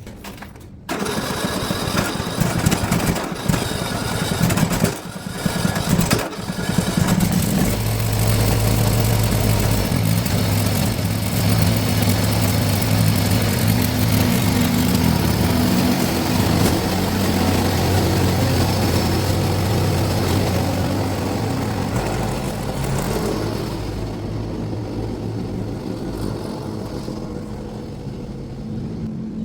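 Ride-on lawn mower's petrol engine starting about a second in, dipping briefly twice soon after, then running steadily. It is on its first test run after an oil and filter change. It runs somewhat quieter over the last few seconds.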